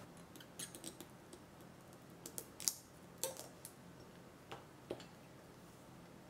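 Light, scattered clicks and taps from handling wax-seal tools: a brass-headed seal stamp stood back upright on the table and a hardened wax seal picked off a marble tile. The sharpest click comes about two and a half seconds in.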